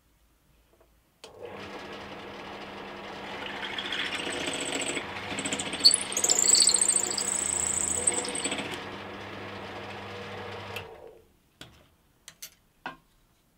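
Benchtop drill press motor starting about a second in and running steadily, louder in the middle while the bit cuts through oak at a steep angle to widen a hole, then stopping about eleven seconds in. A few light clicks follow near the end.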